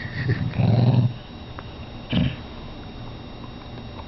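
Dog growling in a fight over a bone: a long rough growl for about the first second, then a short growl about two seconds in.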